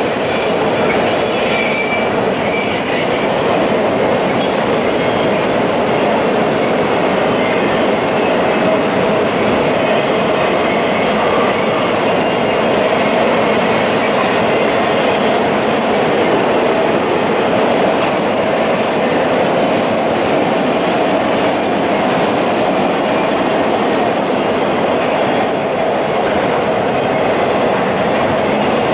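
Freight train of autorack cars rolling across a steel truss bridge: a steady, loud rumble and rattle of wheels on rail, with a few faint high wheel squeals in the first few seconds.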